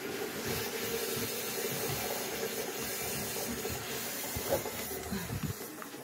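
A steady hiss.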